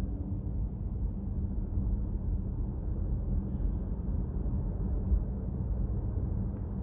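Steady low road and engine rumble heard inside the cabin of a moving 2024 Chevrolet Trax Crossover.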